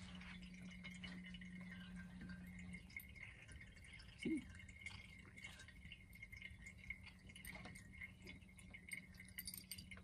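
Ceramic cat drinking fountain running: a faint trickle of water over a steady low hum from its pump. A brief vocal sound comes about four seconds in.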